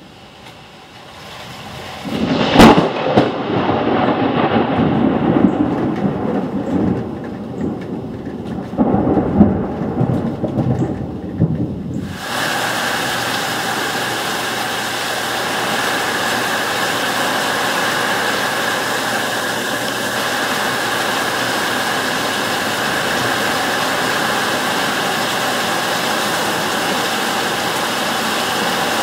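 Thunder: a sharp thunderclap about two and a half seconds in, then rolling rumbles swelling and fading for several seconds. From about twelve seconds in, steady heavy rain pouring down.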